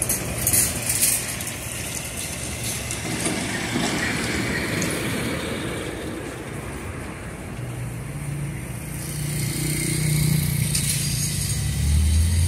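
Ferromex diesel-electric locomotive running as it rolls slowly toward the crossing, mixed with outdoor traffic noise. Its low engine hum grows louder and stronger near the end as it draws closer.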